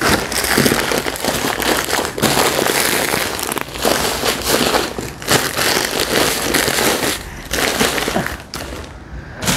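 Clear plastic grocery packets of grain and a shopping bag crinkling and rustling as they are handled and pulled out of the bag, with irregular crackles throughout that ease off near the end.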